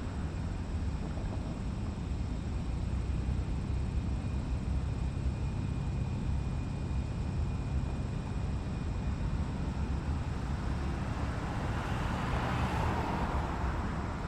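Factory exterior ambience: a steady low industrial rumble with a faint high whine through the middle, and a swell of louder noise building and fading near the end.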